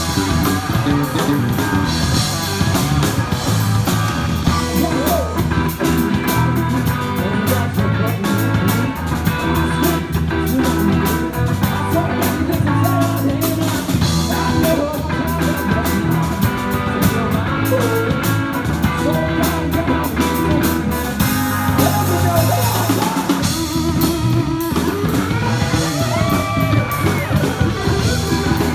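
Live rock band playing loudly: two electric guitars through amplifiers over a drum kit, a steady driving rhythm.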